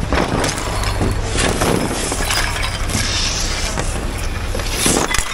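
A wooden table or cabinet being moved, knocking and scraping on a concrete floor in irregular clatters. Underneath is the steady low drone of a truck engine.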